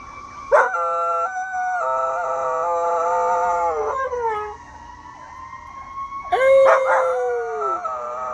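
Pomapoo puppy howling at a fire truck siren: two long howls, the first starting about half a second in and the second about six and a half seconds in, each dropping in pitch as it trails off. A steady siren tone continues underneath.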